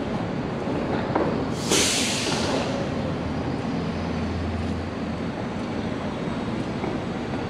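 Steady city street traffic noise, with a short sharp hiss about two seconds in and a low engine hum passing shortly after.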